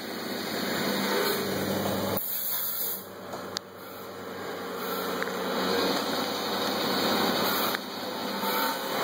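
CNC lathe with a Fanuc control running and turning a part: a steady hiss and whir of spindle and cutting. The level drops briefly about two seconds in, and a sharp click comes about a second after that.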